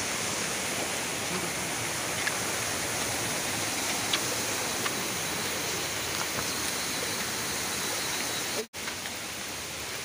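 Steady rush of a small rocky waterfall cascading into a stream, broken by a brief dropout near the end.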